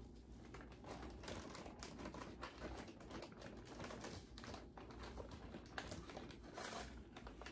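Plastic snack packages crinkling and rustling as they are handled and shifted about, with many light, irregular taps and clicks.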